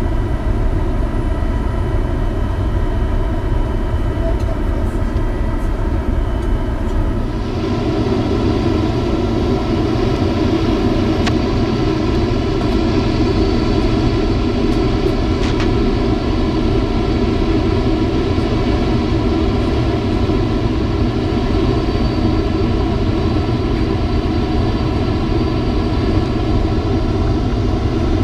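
Steady cabin noise of a jet airliner in flight: engine and rushing air, with several steady whining tones through it. About seven seconds in, a brighter hiss comes in on top and stays.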